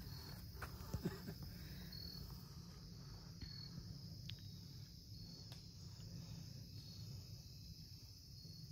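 Faint insect chorus: a steady high chirring with a short high chirp repeating every couple of seconds, and a few faint clicks.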